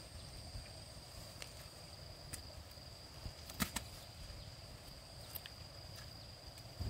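Steady high insect trill, with a few scattered sharp clicks or knocks over a low outdoor rumble; the loudest is a double click about three and a half seconds in.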